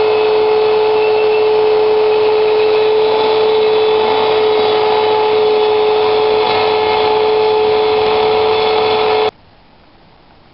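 Rotary-tool spindle of a Shapeoko 2 CNC router running at speed while cutting a pine board: a steady whine with a hiss of cutting over it. It cuts off abruptly about nine seconds in.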